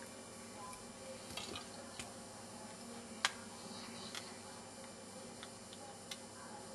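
Scattered small clicks and ticks of a pry tool working at the plastic frame of an Alcatel One Touch 918D phone as the case is levered open, one sharper click about three seconds in, over a steady faint hiss.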